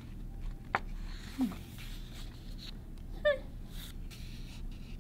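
A paper page of a picture book being turned, with a click and a soft rustle. Near the end comes a brief high-pitched vocal sound, a short nasal 'hmmph'.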